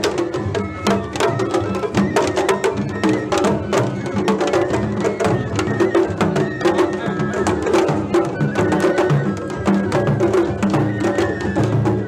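Japanese festival float music (matsuri bayashi): taiko drums struck in a quick, busy rhythm with a high melody held over it, and crowd chatter underneath.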